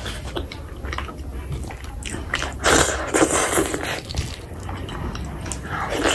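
Close-miked wet chewing of chicken skin curry and rice, with squishing of the oily curry and rice as a bare hand works the food. There is a louder wet squelching stretch about midway, and another as a big handful goes into the mouth near the end.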